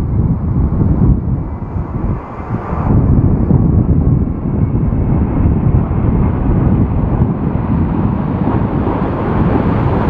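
Boeing 787-9 jet airliner on final approach, its engines a steady rumbling roar mixed with gusty wind buffeting on the microphone. There is a brief lull about two seconds in.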